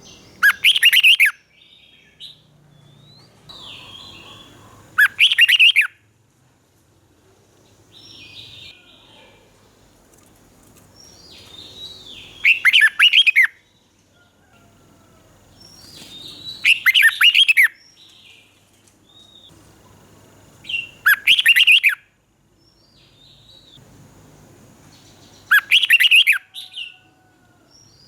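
Red-whiskered bulbul singing: six loud, short song phrases a few seconds apart, with softer chirps and calls between them.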